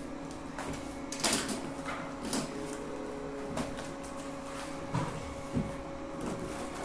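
Packaging and sheets of photo paper being handled: a few short rustling, sliding swishes and light knocks, the loudest about a second in, over a faint steady hum.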